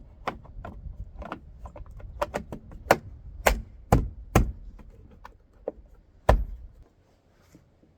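Irregular sharp clicks and knocks of parts and tools being handled at a tractor cab door, about a dozen, with one heavier knock about six seconds in.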